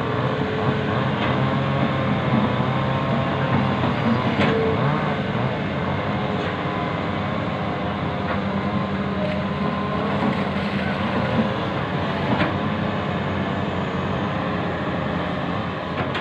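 Hitachi hydraulic excavator's diesel engine running under load as the boom and bucket drag through mud, its note shifting as the hydraulics work. A few sharp knocks come from the bucket and linkage.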